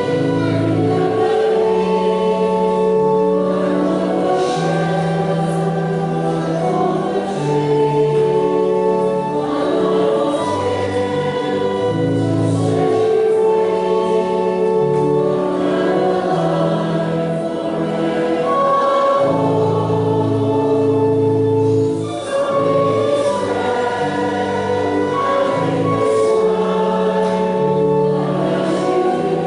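Choir singing a hymn, with long held notes changing every second or two over a sustained bass line.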